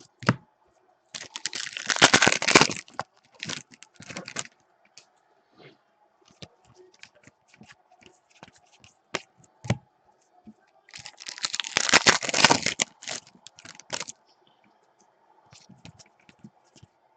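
Foil trading-card packs of 2015 Panini Donruss Soccer being torn open: two noisy rips about ten seconds apart, with light clicks and flicks of cards being handled between them.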